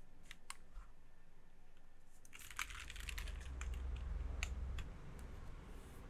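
A Nayeon TKL mechanical keyboard with GMK Dolch keycaps, lightly lubed Zaku switches and a polypropylene plate, being typed on. A few single keystrokes come first, then a quick flurry of keystrokes from about two and a half seconds in, thinning to separate strokes near the end.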